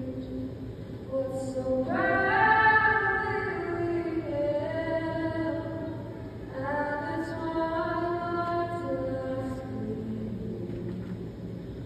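A woman singing solo and unaccompanied into a handheld microphone, in long held notes, with a louder phrase starting about two seconds in.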